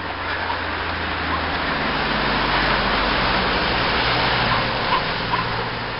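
A car passing on a wet road, its tyre hiss swelling and fading over a few seconds, with a dog giving a few short barks.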